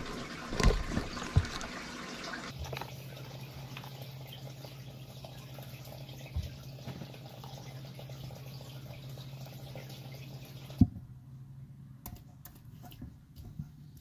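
Feeding pet African bullfrogs in plastic tubs: a few sharp thuds early on as a bullfrog takes roaches, then a steady low hum under faint hiss, then a sharp click and scattered light clicks near the end.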